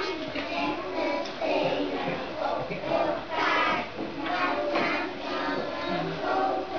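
Young children singing together as a group.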